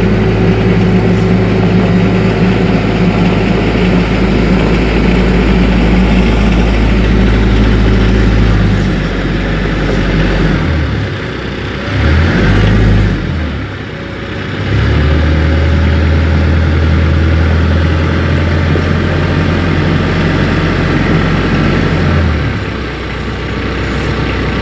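TYM 474 tractor's diesel engine running steadily as the tractor is driven. It falls and shifts in pitch for a few seconds near the middle, then settles back to a steady run and eases off near the end.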